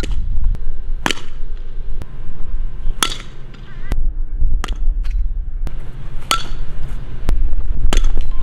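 Fastpitch softball bat hitting softballs, about six sharp cracks spaced a second and a half to two seconds apart, over a low steady rumble.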